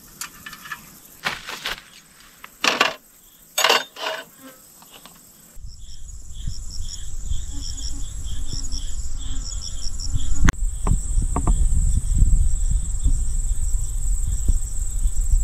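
Crickets chirping in a regular pulse, about two to three chirps a second, over a steady high insect whine. The first few seconds hold only scattered clicks and rustles; about halfway through, a loud low rumble comes in and stays.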